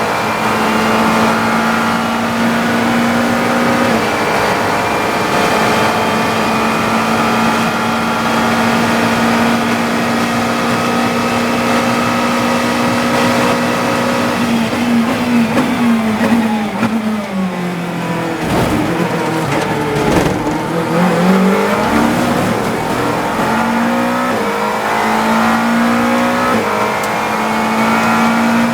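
GT3 race car engine at full throttle, held at a steady pitch for a long stretch. Then come a quick series of downshifts under braking, with the revs dropping in steps. It accelerates away again, climbing in pitch with upshifts near the end.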